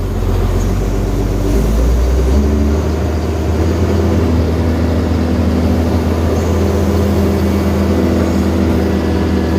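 Diesel engine of a Caterpillar 320 CL hydraulic excavator running under load as it works. The engine note rises about two seconds in and then holds steady.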